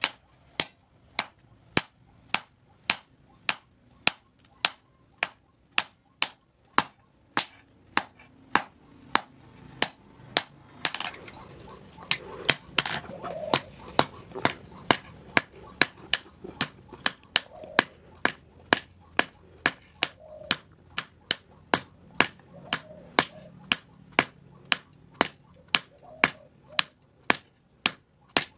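Hand hammer forging a red-hot steel meat cleaver blade on an anvil: steady blows about two a second, each a sharp metallic clang with a brief ring.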